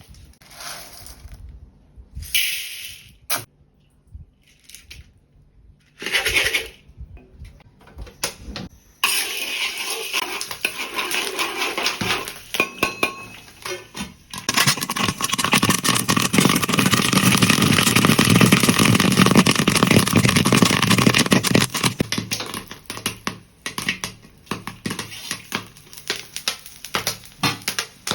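Popcorn popping in a pan. A few scattered sounds come first; from about nine seconds in, a dense crackle of popping builds, is thickest in the middle, and thins out to separate pops near the end.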